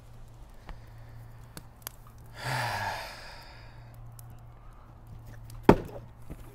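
A man's long, breathy sigh of contentment after a sip of whiskey, over the small crackles of a wood fire. A single sharp thump comes near the end.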